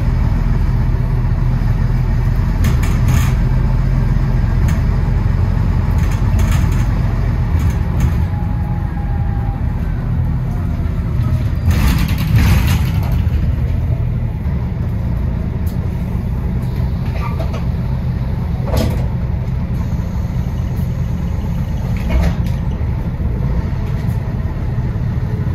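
A bus running, with a steady low engine rumble. Occasional short sharp knocks and rattles come through it, the loudest about halfway through.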